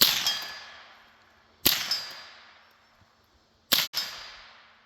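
Three rifle shots from an AR-15 firing .22 LR through a CMMG conversion kit, about two seconds apart, each trailing off in a long echo with a faint ringing tone.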